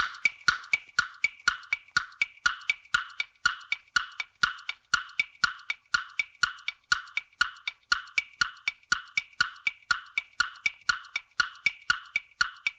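Countdown timer sound effect: a steady, even wood-block ticking at about four ticks a second, marking the time left to answer.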